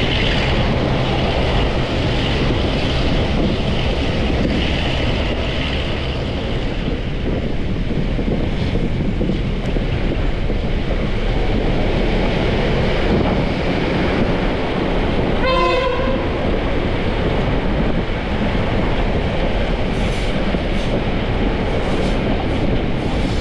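Heritage electric train running, a steady rumble of wheels on the track heard from an open cab window. A short horn blast sounds about two-thirds of the way through, and a few sharp clicks come near the end.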